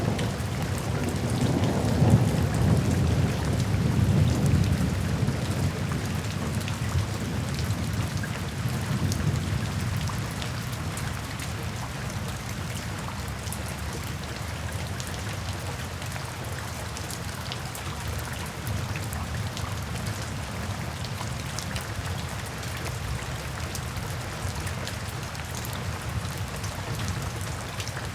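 Steady rain falling, an even hiss with many small drop patters, with a low rolling rumble of thunder in the first third that swells a couple of seconds in and then fades away.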